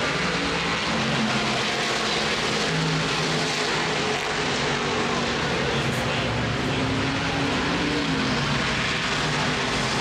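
Steady drone of engines running, holding an even level.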